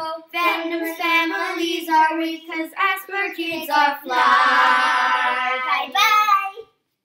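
A child singing the last line of a song, ending on a long held note that stops shortly before the end.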